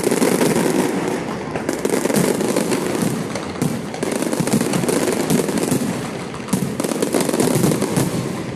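A dense fireworks barrage: a continuous, rapid crackle of many overlapping bursts as ground fireworks and aerial shells go off together.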